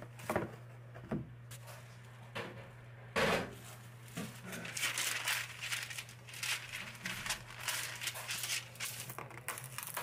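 A few separate knocks, then irregular crinkling and rustling from about four seconds in, over a steady low hum.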